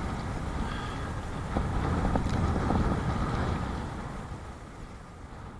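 Strong wind buffeting the microphone over choppy water, with a few water splashes against a kayak. It fades out over the last couple of seconds.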